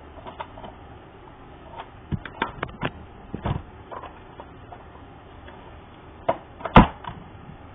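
Scattered clicks and light knocks of hard plastic parts and a tool being handled while taking a vacuum cleaner apart, with one sharp knock near the end.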